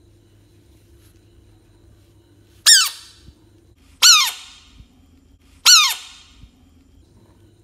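Bullfrog giving three loud distress screams about a second and a half apart, each a short shrill cry that drops in pitch at its end, made with its mouth wide open when it is touched.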